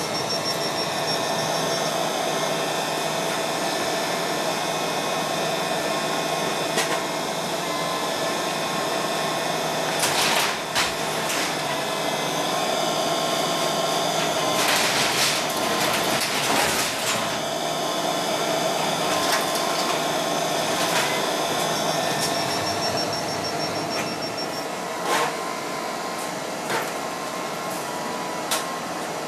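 Volvo high-reach demolition excavator working, its diesel engine and hydraulics giving a steady drone with a held whine. Crashes and crunches of building debris break through at intervals, loudest about ten seconds in and again around fifteen to seventeen seconds in.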